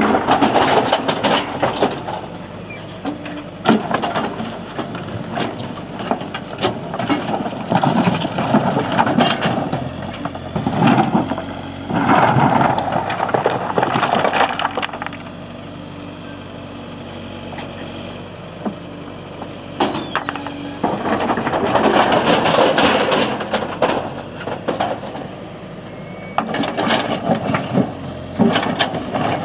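JCB backhoe loader's diesel engine running under load, with repeated rushes of loose stone clattering and crashing as loads are dumped into a tipper truck, each lasting one to three seconds.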